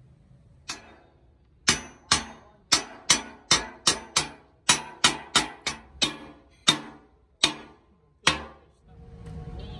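Chipping hammer striking the weld seams of a steel patch plate welded onto an excavator boom: a series of sharp metallic clanks with short ringing, irregular, about two a second. Near the end a steady hiss of a gas torch flame begins.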